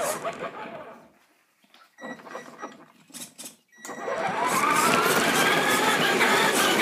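Traxxas RC car's motor and gears whining in short stop-start bursts, then from about four seconds in a long run with the whine rising in pitch as the car speeds up across the floor.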